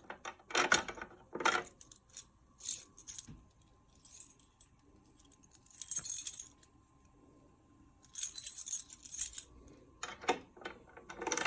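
A ring of keys jangling and rattling in irregular bursts as it is handled, with a faint steady tone underneath for several seconds.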